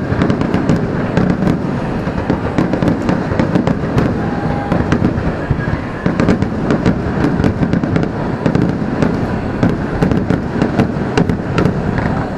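Fireworks display: aerial shells launching and bursting in rapid succession, a continuous barrage of booms mixed with sharp crackling bangs.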